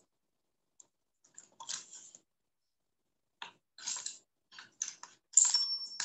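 Irregular short clicking and rustling noises close to the microphone, a handful of bursts each under half a second, dropping to dead silence between them.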